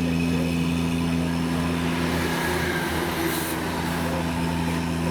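An engine running steadily, a constant low drone holding two unchanging low tones.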